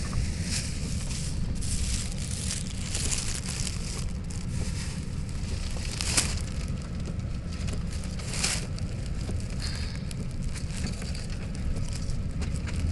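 Steady low road rumble inside a moving car's cabin, with irregular crinkling and rustling of a plastic bag being handled, loudest about six seconds in and again near eight and a half seconds.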